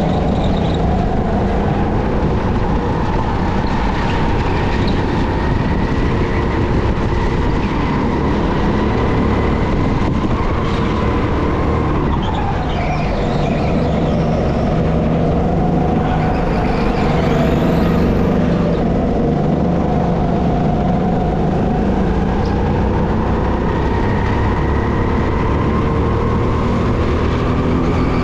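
Engine of an SR5 200cc four-stroke rental kart running hard under way. Its revs climb slowly, drop sharply about twelve seconds in, then climb again.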